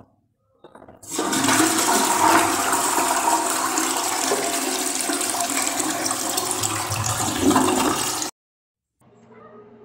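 Jade toilet flushing: water rushes and swirls into the bowl for about seven seconds, then cuts off suddenly.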